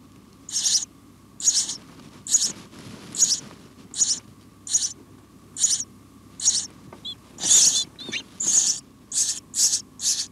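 House sparrows chirping at the nest: short, high chirps repeated about once a second, coming faster, about two a second, near the end.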